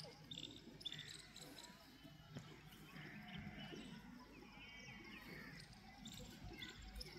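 Quiet outdoor ambience with a few faint, short high-pitched chirps, a pair near the start and a small twittering cluster about five seconds in.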